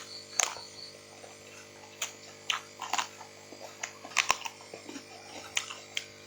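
Eating sounds: short, irregular smacks and clicks of a person chewing and handling blanched clams, over a steady low hum.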